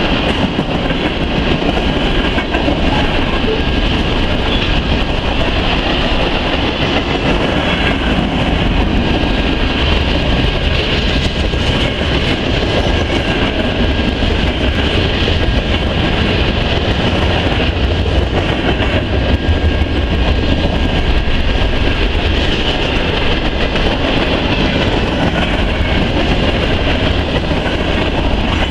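Long mixed freight train of tank cars, lumber-loaded flatcars and covered hoppers rolling past close by: steel wheels running on the rails in a steady, unbroken rumble.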